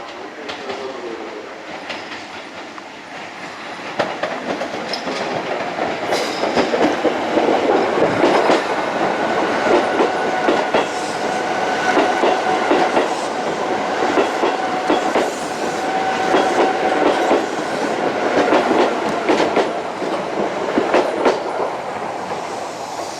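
Electric commuter train running over the tracks, its wheels clacking rapidly over rail joints and points, with a faint steady whine over the clatter. The sound grows louder about four seconds in and stays loud.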